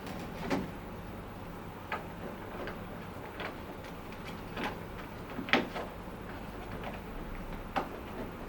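Irregular clicks and knocks of the air scrubber's plastic housing and filter being handled during a filter change, about ten in all, the loudest about five and a half seconds in, over a faint steady hum.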